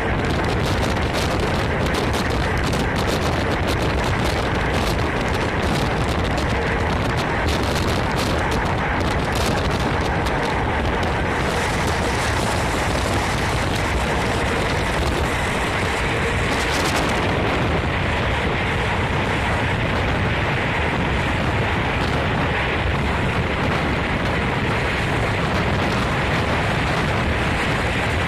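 Locomotive-hauled passenger train running at speed, heard from an open window: a steady rush of wind on the microphone over the rumble of wheels on the rails. Rapid ticks come through during the first ten seconds or so.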